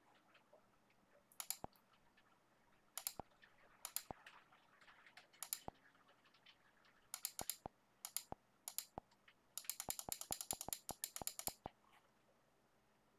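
Computer keyboard and mouse clicking in short clusters of a few clicks each. A faster run of clicks comes about ten seconds in.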